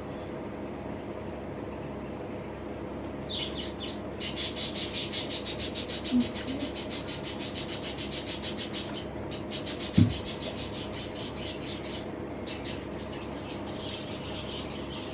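Young budgerigars giving a fast run of high, raspy chirping calls that starts about four seconds in and fades out about eight seconds later. A single short thump comes about ten seconds in, over a steady low hum.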